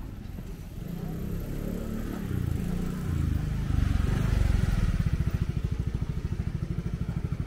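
Motor vehicle engine close by, building to its loudest about four seconds in, then settling into a steady low chugging pulse.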